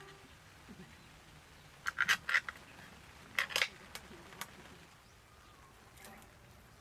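Light clicks and taps of cooking utensils being handled, in two quick clusters about two and three and a half seconds in.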